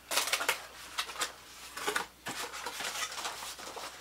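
Plastic wrap and packing material rustling and crinkling as hands dig the parts out of a printer's styrofoam packing. It comes as a string of short crackles and scrapes, busiest at the start and scattered after that.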